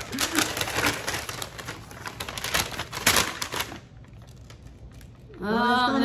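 Wrapping paper being torn and crinkled off a gift in quick rustling strokes, dying away about four seconds in. Near the end a woman's voice comes in with a drawn-out vowel.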